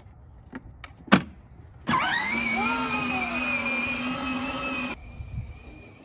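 Power Wheels Dune Racer's upgraded 24-volt electric motors and gearboxes whining as the ride-on pulls away with two children aboard. The whine rises steadily in pitch for about three seconds and cuts off abruptly. A sharp click comes just before it starts.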